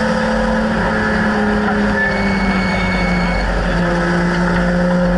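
BMW E30 race car's engine heard from inside the cabin, running steadily under load at track speed with wind and road noise. The engine's pitch drops slightly a little past halfway.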